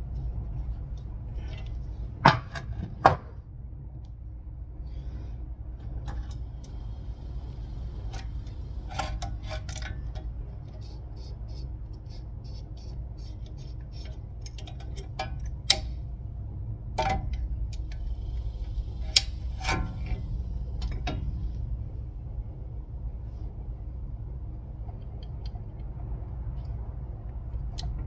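Metal tools and brake parts being handled: scattered sharp clinks and clanks, two loud knocks about two and three seconds in and more near the middle, over a steady low hum.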